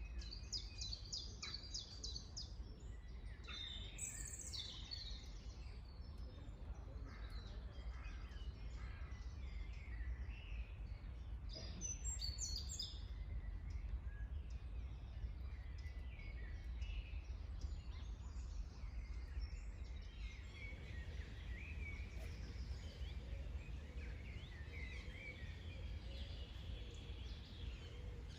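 Several songbirds singing and calling in spring woodland, with short trills and chirps scattered through, over a steady low rumble.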